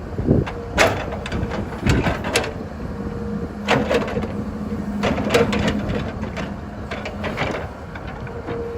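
An excavator at work: its diesel engine runs steadily under repeated irregular metal clanks and knocks. A steady hum comes in about three seconds in.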